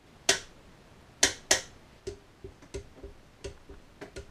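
Ratchet wrench running down the bolts on an automatic transmission's servo body: three sharp metallic clicks in the first second and a half, then a run of lighter ratchet ticks, a few a second.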